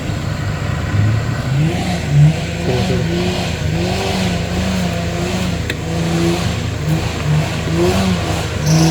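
An off-road 4x4's engine revving up and down over and over, its pitch rising and falling every second or so as the throttle is worked.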